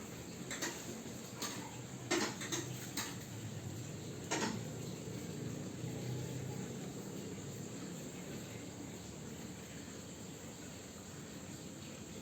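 Strange sound from the dashboard of a switched-off, stationary Wuling Air EV: a faint steady hum with about six irregular sharp clicks in the first four or five seconds. The owner heard it going on and on the night before the car went completely dead.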